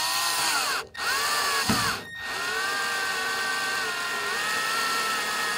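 Cordless drill/driver running screws into an aircraft's tail beacon mount, its motor whine rising and falling in pitch. Two short runs, then a longer run from about two seconds in, snugging the screws partway before final tightening.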